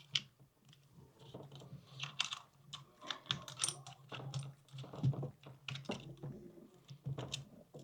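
Irregular light clicks and rattles from a steel cable lock being handled and wrapped around a scooter, the cable and lock body knocking as it is set up for locking.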